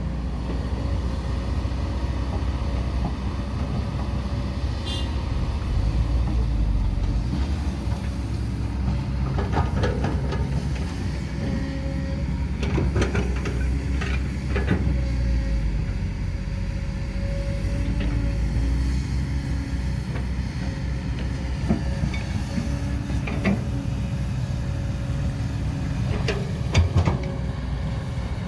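Excavator at work: a steady low engine rumble with scattered knocks and clatter, a sharper knock near the end.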